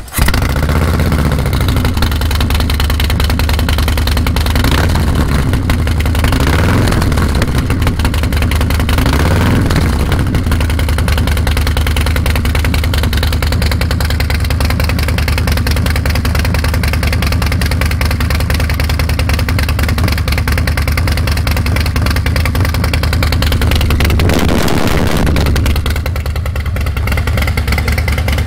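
Harley-Davidson V-twin running through a freshly fitted aftermarket exhaust. It catches and settles into a deep, loud idle, is blipped several times in the first ten seconds, and is revved once more near the end.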